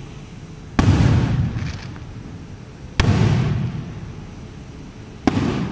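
Aerial firework shells bursting: three sharp booms, about two seconds apart, each trailing off in an echoing rumble.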